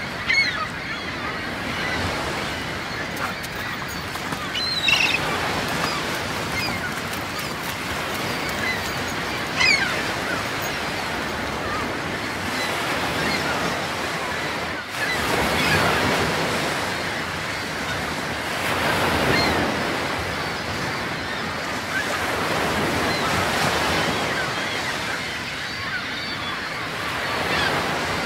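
Steady rushing of surf and wind on a beach, swelling and easing now and then, with a few brief high-pitched calls over it.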